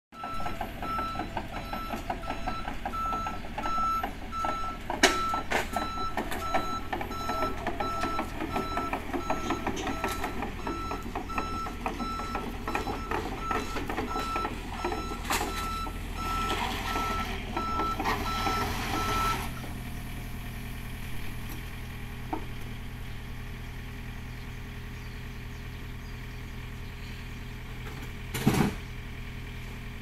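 Komatsu PC45MR mini excavator's diesel engine running while it drives down loading ramps off a truck, its travel alarm beeping in a rapid regular on-off pattern, with sharp clanks and knocks as the tracks come over the ramps. The beeping stops after about twenty seconds, leaving the engine idling steadily.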